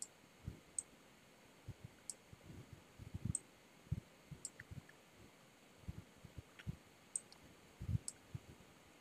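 Faint computer mouse button clicks, about ten, scattered irregularly, with soft low thumps in between.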